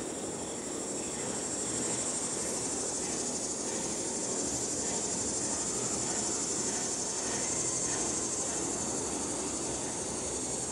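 Double-stack intermodal container cars rolling over a steel plate-girder bridge, a steady rumble of wheels on rail, with a high shrill hiss over it that swells after the first couple of seconds and eases near the end.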